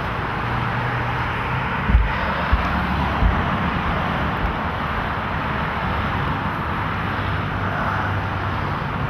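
Steady outdoor background noise with a faint low hum, broken by a few dull thumps about two to three seconds in as a man climbs up onto a trailered catamaran's hull.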